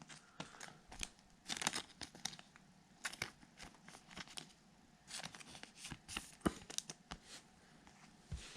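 Plastic-foil wrapper of a 2021 Topps Heritage baseball card pack being torn open and crinkled, a quiet run of short crackles and clicks.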